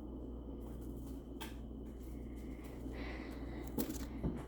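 Steady low room hum with a few faint clicks and rustles: one about a second and a half in and a couple near the end.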